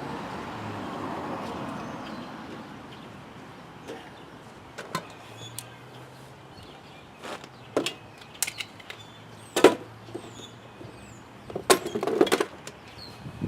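Scattered knocks and clinks of hand work on a snow plow, the loudest about nine and a half seconds in and a quick cluster near twelve seconds, after a brief rushing swell of noise in the first few seconds.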